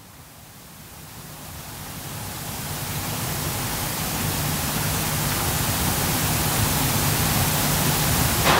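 Steady even hiss with a faint low hum beneath it, growing gradually louder throughout.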